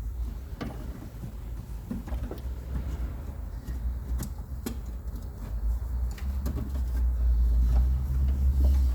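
Scattered light clicks and knocks of tools and parts being handled during window regulator reassembly, over a low rumble that grows louder near the end.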